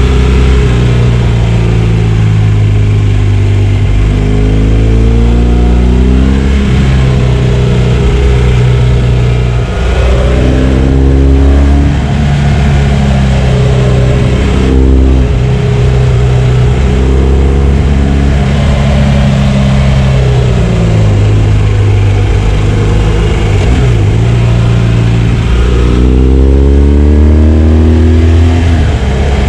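A BMW R1200 GS's flat-twin (boxer) engine being ridden through the gears. It rises in pitch under acceleration and drops back at each gear change several times, with a stretch of falling revs as it slows in the middle.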